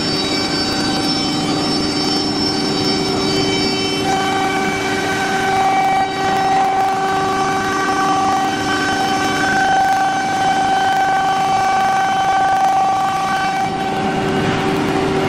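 CNC wood router running with a steady, many-toned whine. The pitch pattern shifts about four seconds in and again near the end.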